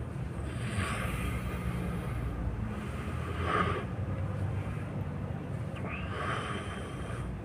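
A sleeping person snoring: three noisy breaths roughly two and a half seconds apart, over a steady low rumble.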